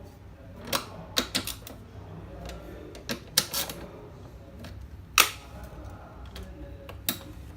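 Irregular sharp clicks and knocks of hands working on a top-load washing machine's parts during reassembly, as a wiring connector is refitted. About a dozen strokes, some in quick clusters, the loudest a little past five seconds in.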